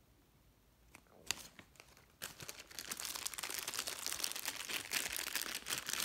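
Clear plastic bag crinkling as a small flexible tripod is handled inside it. The dense crinkling starts about two seconds in, after a couple of light ticks.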